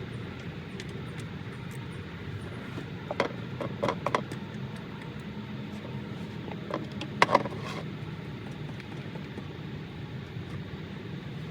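Sharp metallic clinks of a socket and ratchet working at a car's oil drain bolt, a cluster about three to four seconds in and the loudest about seven seconds in. The bolt is stripped and the tools won't grab it. A steady low hum runs underneath.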